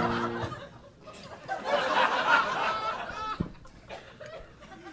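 Audience laughing at a punchline. The laughter swells about two seconds in and dies away, after the tail of a sung chord fades at the start.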